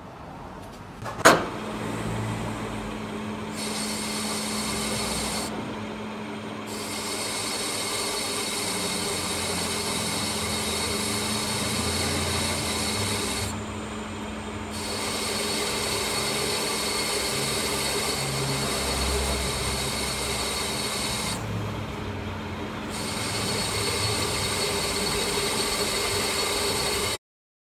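Metal lathe running and turning a steel gear shaft, the cutting tool shearing off curled chips with a steady machining hum and hiss. A sharp click about a second in; the cutting sound drops out briefly three times between cuts, and everything cuts off suddenly near the end.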